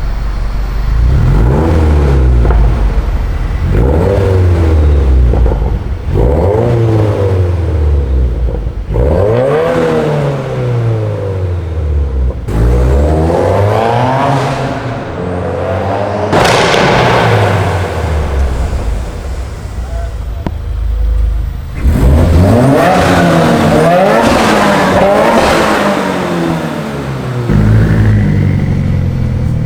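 Turbocharged Subaru WRX flat-four with an Invidia Q300 cat-back exhaust, revving up and dropping back again and again across a series of short cut-together clips. Two sudden hissing rushes of air come as the revs fall, about halfway through and again about two-thirds in.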